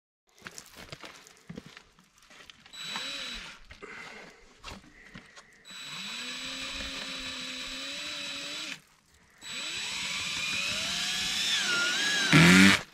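Cordless drill run in three bursts, boring into the casing of a Bosch PowerPack e-bike battery, its motor whine rising in pitch during each run. A brief, much louder burst comes near the end.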